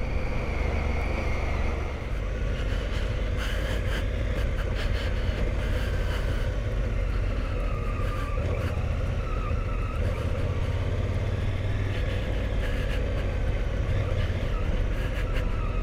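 Adventure motorcycle riding along a gravel track, its engine running steadily under a heavy low wind-and-road rumble.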